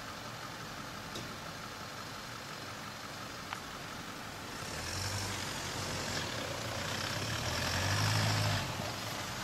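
An off-road SUV's engine running in sand, low and steady at first, then revving louder from about halfway through, peaking near the end before easing off.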